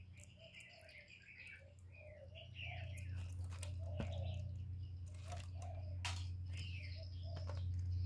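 Small birds chirping in quick, repeated calls, with a few sharp clicks and rustles from a caged spotted dove moving its wings against the wire cage, over a steady low hum.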